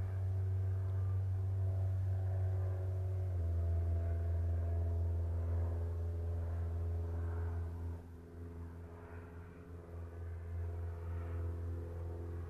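Steady low mechanical drone with several even tones above it, like an engine running, shifting slightly in pitch about three seconds in and getting quieter about eight seconds in.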